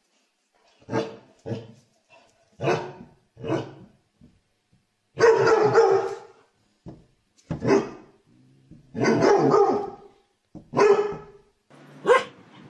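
A dog barking over and over in short bursts of one or a few barks, starting about a second in, with two longer runs of barking in the middle.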